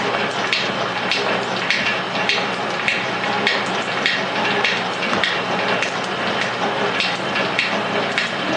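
Rhodes metal shaper running, its ram stroking back and forth as the tool cuts a steel block in the vise, with a sharp clack about twice a second over the steady hum of the drive.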